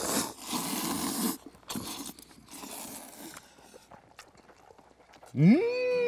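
Noodles in broth being slurped noisily: one long slurp at the start and another about two and a half seconds in. Near the end a man gives a long rising 'mmm' of enjoyment.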